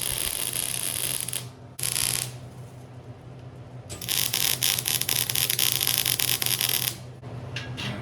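Electric arc welding crackling in three runs: a short one at the start, a brief tack around two seconds in, and a longer bead from about four to seven seconds. A steady low electrical hum runs underneath.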